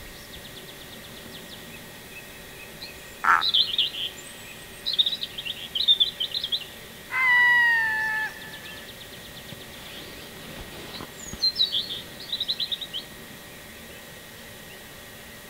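Wild birds singing and calling: several bursts of short, high, rapid songbird phrases over a faint steady trill. About seven seconds in, a louder drawn-out call lasts about a second and falls in pitch at the end.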